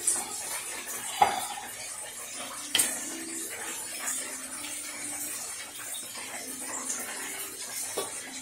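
Dishes and utensils clinking on a kitchen counter: a few sharp clinks, about a second in, near three seconds and near the end, over a faint steady background.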